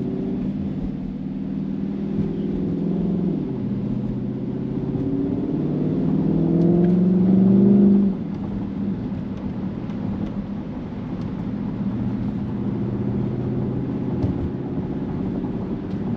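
Widebody Dodge Charger's V8 engine under way: its note steps down about three seconds in, then climbs and gets louder for a few seconds before dropping off suddenly about eight seconds in, settling into a steady lower drone.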